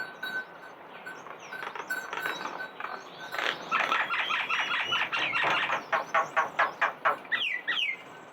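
A dog squealing: a rapid run of high-pitched yelps, about five a second, starting a little over three seconds in and ending in a few falling whines. Faint bird or insect chirps repeat in the background.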